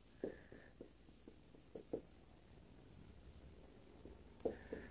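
Marker writing on a whiteboard: faint, scattered taps and strokes of the tip on the board, with a pause in the middle.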